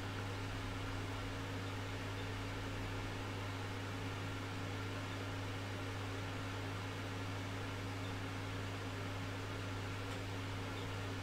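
A steady low hum over an even hiss, with no change in level.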